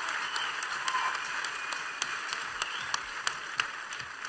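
Audience applauding, with scattered sharp clicks sounding over the clapping, and the applause fading toward the end.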